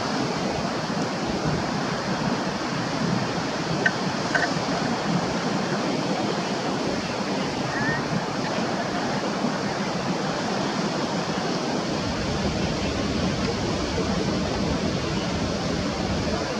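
Steady rushing of falling water, with a few brief high chirps about four and eight seconds in.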